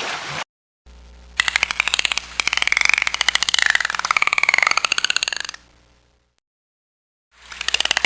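An animal's rapid, rasping pulsed call with a wavering pitch, in two long bouts with a pause of about two seconds between them. A brief rush of water-like noise cuts off about half a second in.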